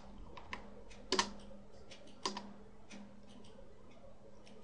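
Computer keyboard typing in a few sparse keystrokes, with two louder key presses about a second and two seconds in, over a faint steady hum.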